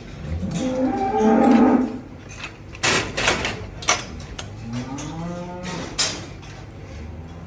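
Dairy cattle mooing: a loud moo in the first two seconds and a second, rising-then-falling moo about five seconds in. Sharp knocks fall between and after the calls.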